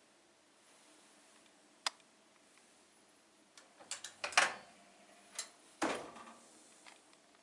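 A sharp click, then a run of clicks and knocks about two seconds later, the loudest near the middle, and one more faint click near the end: a microwave oven being handled.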